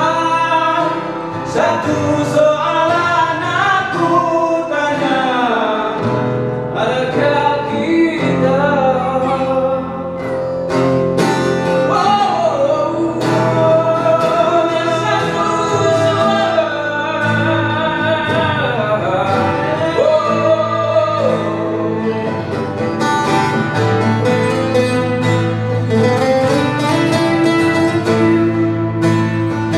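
Live acoustic folk song: two acoustic guitars strummed and picked under a man's singing voice, carrying a bending melody over steady chords.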